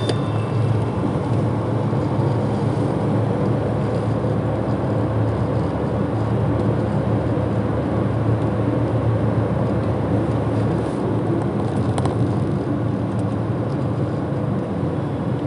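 Car driving at speed on a highway: steady, even tyre and engine noise.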